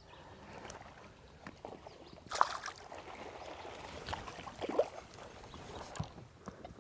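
Faint water splashing and a few light knocks and clicks while a small hooked bass is reeled in, with a couple of louder splashes about a third of the way in and again past the middle.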